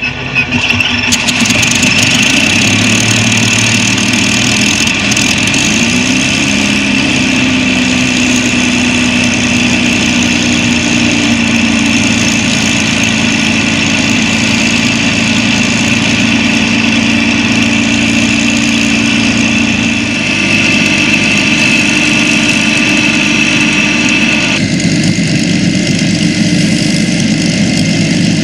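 Messerschmitt Bf 109E-3's Daimler-Benz DB 601 inverted V12 just fired up and running at a steady idle. Its pitch rises slightly about six seconds in and shifts again about two-thirds of the way through.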